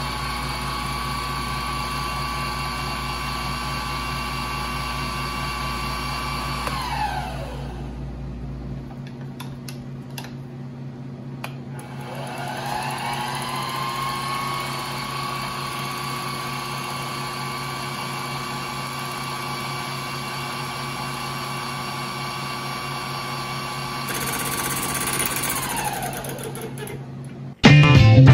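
King Canada KC20VS bench mill's spindle running at steady speed with a high whine, winding down about a quarter of the way in. It starts up again with a rising whine a few seconds later, runs steadily, and winds down again near the end. A short, loud burst of sound closes the window.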